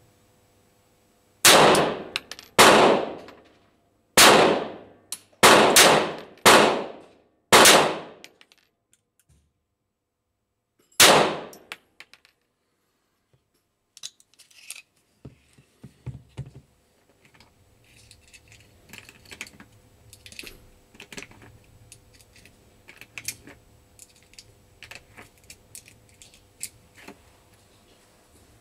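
Pistol firing about eight shots in quick succession, roughly a second apart, the last one after a short pause, each a sharp crack with a short ringing tail. Faint scattered clicks and clatter follow.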